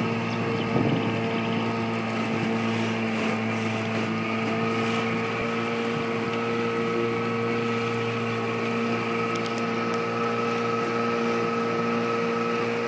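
A boat's motor running at a steady, unchanging pitch while the boat moves through floodwater.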